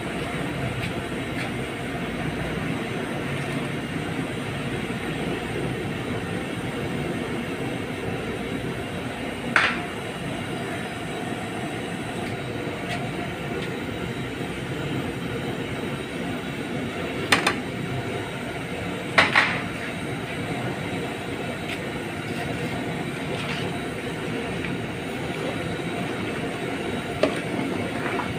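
Steady rushing noise of a large aluminium pot of dal and rice cooking over the heat, with four short sharp metallic clinks of utensils against the pot, the last as a ladle goes in to stir.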